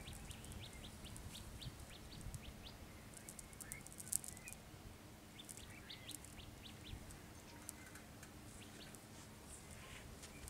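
Faint small birds chirping, with many short high ticks and a sharper click about four seconds in, over a faint steady low hum.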